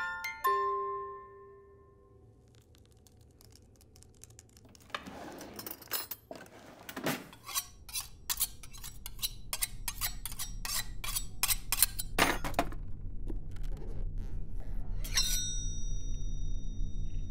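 Kitchen knives and metal cutlery clinking and clattering in a quick, irregular run of sharp strikes. A final strike about fifteen seconds in leaves a high metallic ring that holds. Underneath, a few glockenspiel notes fade at the start and a low musical drone builds from the middle on.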